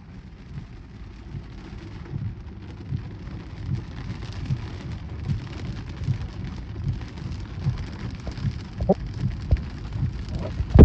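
Steady rain of a thunderstorm, with a regular low thump about every three-quarters of a second.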